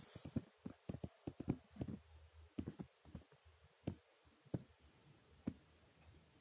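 Faint, irregular small clicks and taps, coming quickly at first and growing sparse after about five seconds.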